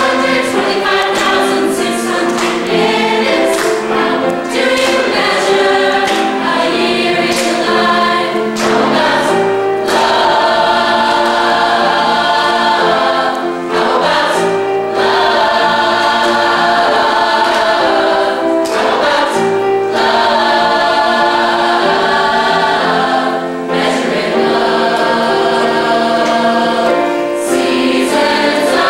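High school chorus singing in harmony, holding long chords between short breaths.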